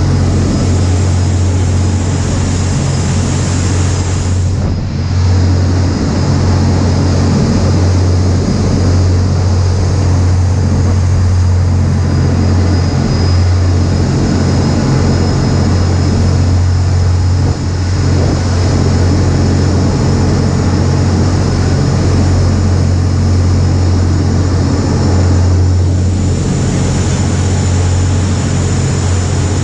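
Sea-rescue vessel running at speed: a steady, loud, low engine drone under the rush of its churning wake.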